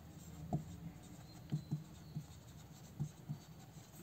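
Whiteboard marker writing on a whiteboard: a series of short, faint strokes as the words are written.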